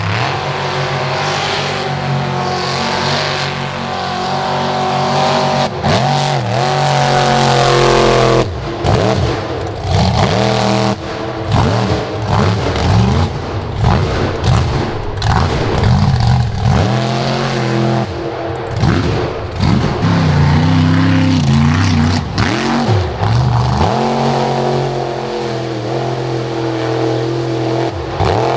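Supercharged big-block engine of a mega mud truck revving hard again and again, its pitch rising and falling with each burst of throttle as the tires spin in the mud.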